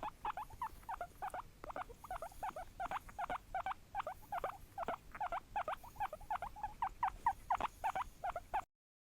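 Guinea pig squeaking in a long run of short, quick squeaks, several a second, that stop abruptly near the end.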